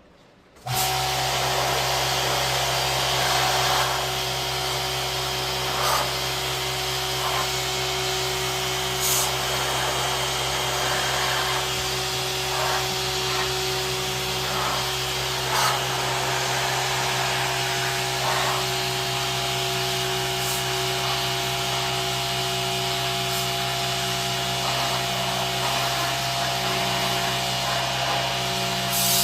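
An electric motor-driven machine switched on under a second in and running steadily: a constant hum with a hiss over it and a few faint clicks.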